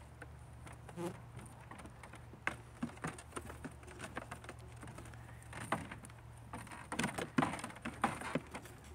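Goat kids' hooves knocking and scraping on wooden cable-spool tops: irregular light taps and clatters, busiest near the end as a second kid climbs up.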